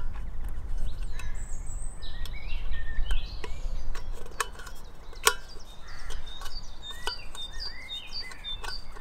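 Small birds chirping and twittering in the background, with a few sharp clicks and taps as a metal dial thermometer is fitted into the hole of an aluminium Omnia oven lid, over a low steady rumble.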